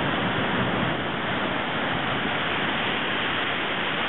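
Steady rushing of surf breaking along the shore.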